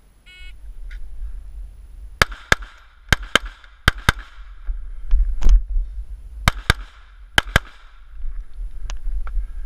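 A shot timer's short electronic start beep, then a rapid string of rifle shots, mostly fired in quick pairs: three pairs about two seconds in, one single shot, then two more pairs.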